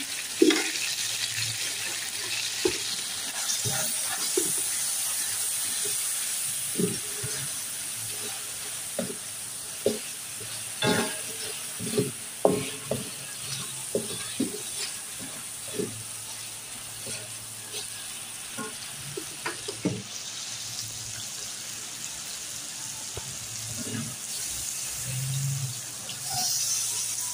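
Chicken sizzling in oil in a wok while a wooden spatula stirs it through ground spices, with scattered scrapes and knocks of the spatula against the pan, most of them in the first half.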